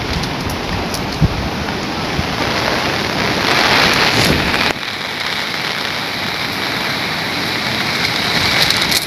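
Steady rain with wind buffeting the microphone in the first half. The sound changes abruptly about halfway through to a smoother rushing noise.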